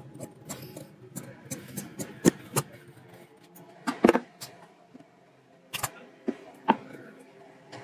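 Large steel tailoring shears cutting through cotton kurta cloth, a run of sharp blade snips, followed about four seconds in by a louder knock as the shears are set down on the table, then a few more knocks and rustles as the cut cloth is handled and folded.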